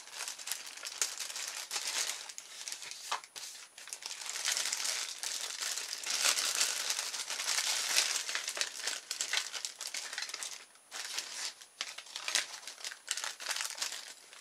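Clear plastic bag crinkling and rustling as hands handle and open a bag of plastic kit parts: a steady run of small crackles with a few brief pauses.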